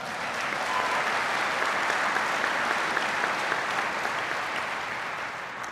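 Audience applauding, building up in the first second and slowly dying down near the end.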